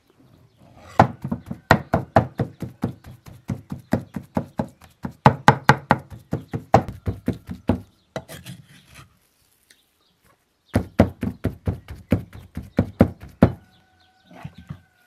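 Meat cleaver chopping ground meat on a wooden chopping board: rapid, evenly paced knocks of about five a second. They stop for about two seconds midway, then start again.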